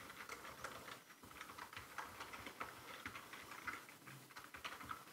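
Typing on a computer keyboard: a run of faint, quick, irregular keystrokes.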